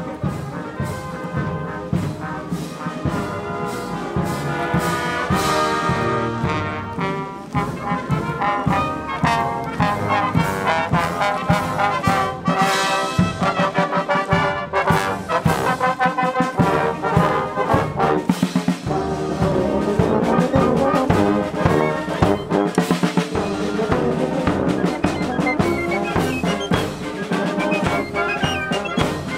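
Military band playing a march outdoors: brass melody over a steady drum beat.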